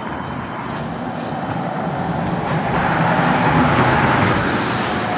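Street traffic noise: a car driving past, its engine and tyre noise swelling to a peak about four seconds in and then easing off.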